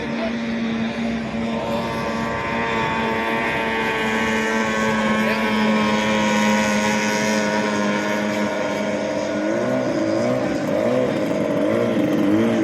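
18 hp outboard motors of racing speedboats running at speed, steady at first. Near the end the engine pitch rises and falls repeatedly.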